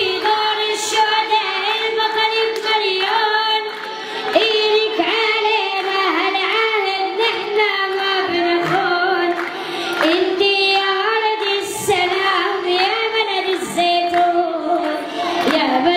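A boy singing an Arabic nasheed solo into a microphone, a supplication to God, in long held notes ornamented with many small turns and bends of pitch.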